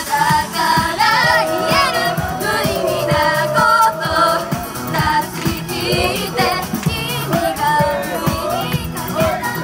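Female J-pop idol group singing live into handheld microphones over a pop backing track with a steady dance beat.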